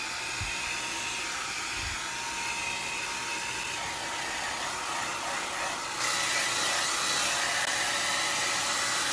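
Handheld hair dryer blowing steadily, a rush of air with a faint motor whine, used to heat a Samsung Galaxy Tab S2's screen so its adhesive softens for removal. It gets a little louder about six seconds in.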